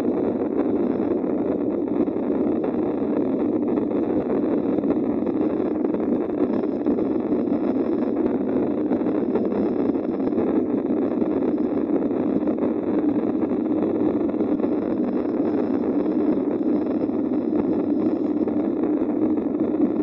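Jet airliner cabin noise: the engines and air rushing, heard from inside the cabin as a steady, unchanging drone while the plane is on the ground by the runway.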